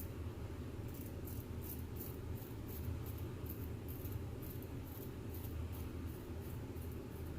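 Straight razor scraping through lathered whiskers in short strokes, about two a second, starting about a second in, during the first pass of a wet shave.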